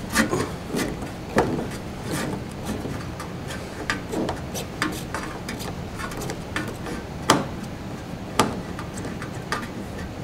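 Phillips screwdriver unscrewing a license-plate light screw from a car's bumper: irregular small clicks and scrapes of the tip turning in the screw head, with a few sharper knocks.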